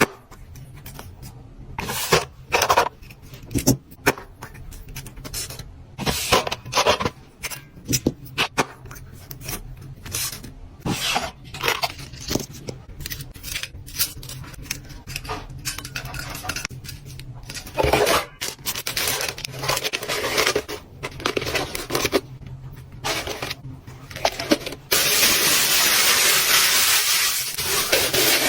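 Fingernails tapping fast on hard objects and packaging, irregular sharp clicks mixed with scratching. About 25 seconds in this gives way to a louder steady rustling hiss.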